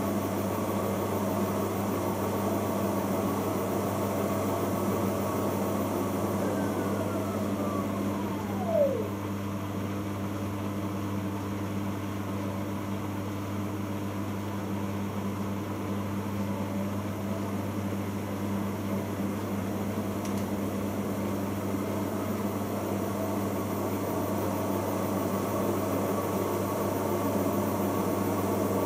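Bosch Logixx WAS32461GB washing machine running in its 1000 rpm interim spin: a steady machine hum. About six seconds in, a whine falls in pitch over a couple of seconds and ends in a short knock, after which the hum drops a little and slowly builds again.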